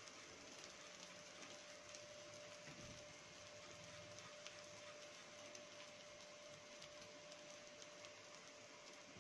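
Near silence: faint steady hiss with a thin steady hum of room tone.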